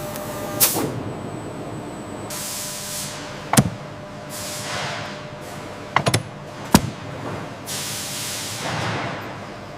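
A few short bursts of hissing, like a spray, with several sharp clicks in between.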